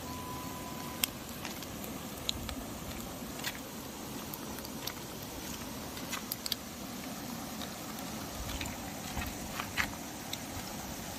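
Steady outdoor background hiss with scattered light ticks and taps, a few sharper ones near the middle and end. A steady beep-like tone sounds for about the first second.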